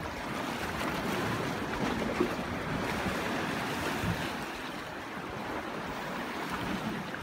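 Sea surf washing against shoreline rocks, a steady rushing wash of water, with some wind on the microphone.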